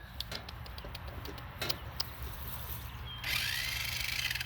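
Small electric motor and plastic gears of a toy remote control car whirring, starting about three seconds in, after a few light plastic clicks.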